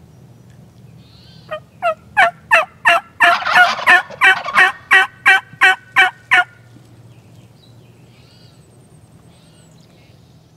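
Wild turkey gobbling close by: a loud run of rattling notes, about three a second for some five seconds, with a second gobble overlapping in the middle. The hunters take the gobbler for a jake, a young male.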